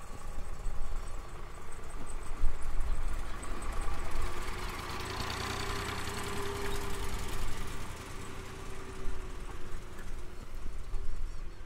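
Sonalika tractor's diesel engine running under load as it pulls a tillage implement through a field, growing louder toward the middle and easing off toward the end.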